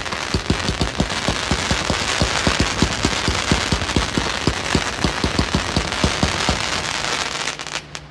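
1.4G consumer fireworks cake firing a rapid string of shots, about five a second, over a continuous crackle and hiss from the rising tails. It stops abruptly just before the end.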